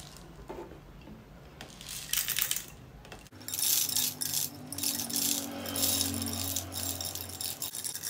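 Matches poured from a squeezed plastic cup into an aluminium drink can: a dry rattling trickle in spurts, one short spurt about two seconds in, then a longer, louder run through the second half.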